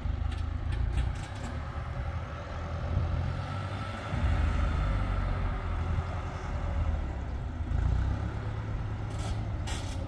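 Engine of a slow-moving loaded farm vehicle running with a steady low rumble that rises and falls in loudness.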